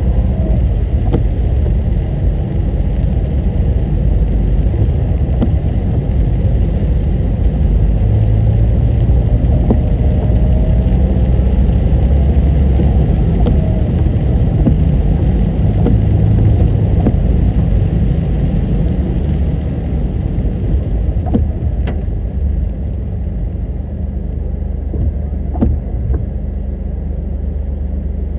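Steady low rumble of a car's engine and tyres heard from inside the moving vehicle, with faint scattered ticks; the noise eases a little about three-quarters of the way through.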